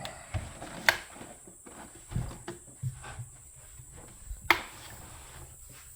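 Scattered clicks and light knocks of hands handling metal parts of an espresso machine during reassembly. The sharpest click comes about four and a half seconds in, with others near one and two seconds and a few soft thumps between.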